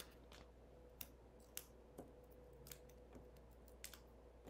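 Faint, scattered clicks and taps of small paper pieces and foam adhesive dimensionals being handled on a craft table, over a low steady hum.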